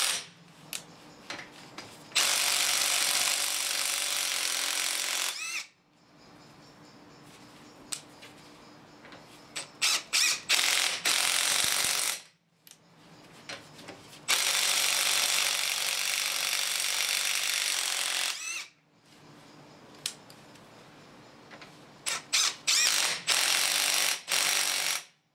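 Kielder KWT-002 18V brushless cordless impact wrench hammering on van wheel nuts to undo them, in two long runs of about three and four seconds, with several short bursts of the trigger in between.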